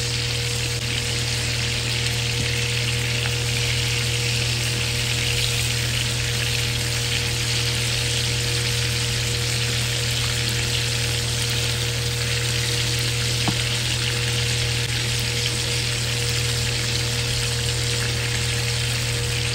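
Prawns frying in hot oil in a nonstick pan, sizzling steadily, with a few light taps of the spatula as they are turned.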